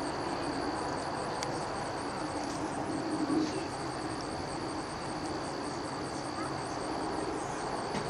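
Steady high-pitched insect trill, typical of crickets, breaking off briefly twice, over a steady low background rumble.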